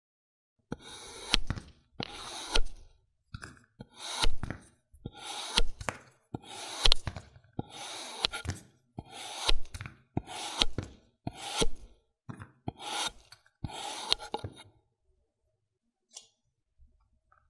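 A metal knife slicing through a block of kinetic sand, about a dozen cuts, each a short gritty crunching scrape with sharp clicks in it. The slicing stops about three seconds before the end.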